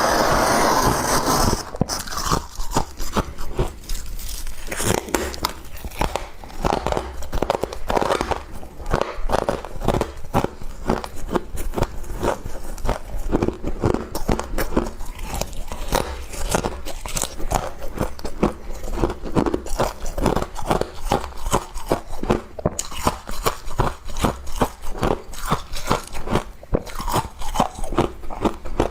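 Close-up crunching and chewing of humidifier frost, a quick, continuous run of crisp crunches, with a louder, longer crunch in the first second or two.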